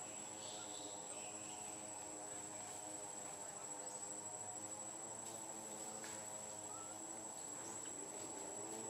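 Steady high-pitched drone of forest insects, with a low steady hum underneath and a few faint short chirps.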